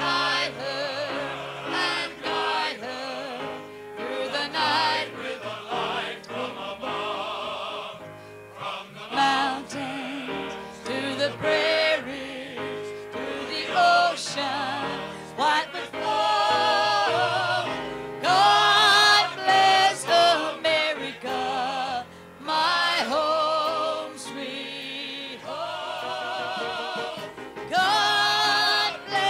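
A female country singer sings into a microphone, her voice wavering with vibrato, backed by a uniformed male chorus singing with her.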